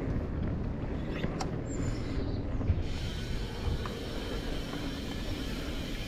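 Mountain bike riding along a dirt trail: a dense low rumble with irregular thumps from tyres and bike on the ground. A steady higher hiss joins about three seconds in.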